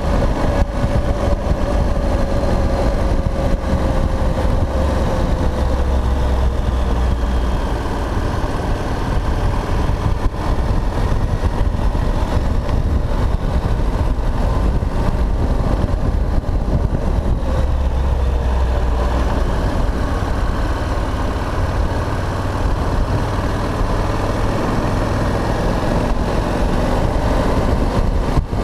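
Honda NC700X's parallel-twin engine running at road speed, recorded on board with heavy wind rumble on the microphone; the engine note drifts slowly lower over the first several seconds.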